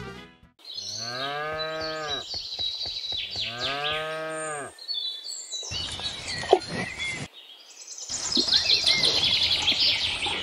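A cow mooing twice, two long calls of about a second and a half each, that rise and then fall in pitch. Birds chirp behind them, and there is a brief sharp knock about six and a half seconds in.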